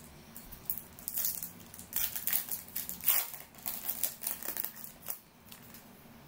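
Silver foil wrapper of a Topps Merlin Chrome trading card pack being crinkled and torn open by hand: a run of short rustling crinkles lasting about five seconds.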